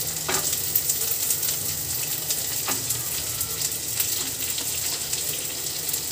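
Chopped onion, garlic, ginger and green chilli sizzling in hot oil in an iron kadhai, stirred with a wooden spatula that scrapes and taps the pan a few times. This is the quick stir-fry of the onion, which is kept crunchy.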